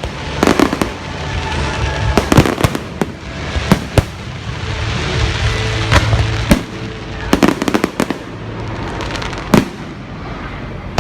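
Aerial fireworks going off: sharp bangs and crackling pops in clusters, the loudest coming about two and a half, four and nine and a half seconds in, over a continuous rumbling haze of further explosions.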